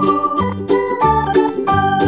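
Background instrumental music with held keyboard-like chords over a steady beat.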